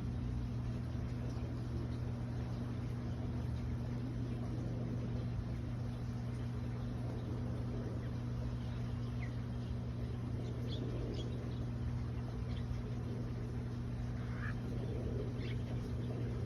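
Steady low electrical hum throughout, with a few faint short duck calls in the second half.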